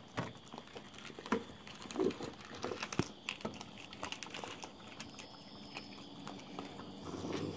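Raccoons feeding and scuffling close by: scattered clicks, crackles and crunches of food and claws, with a few short low thuds.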